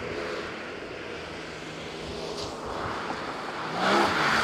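Porsche 718 Cayman GTS 4.0's naturally aspirated flat-six running at steady revs, then rising in pitch and getting louder near the end as the car accelerates past, with road and wind noise.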